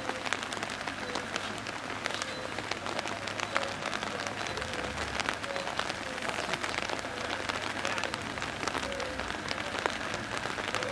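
Rain falling, a steady dense crackle of drops.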